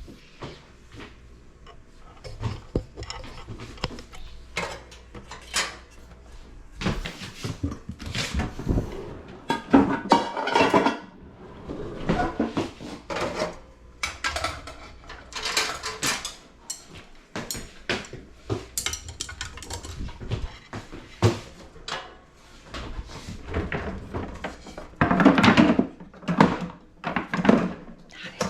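Kitchenware being handled: pots, pans and dishes clattering, with irregular knocks and clinks and two longer noisy stretches, one around the middle and one near the end.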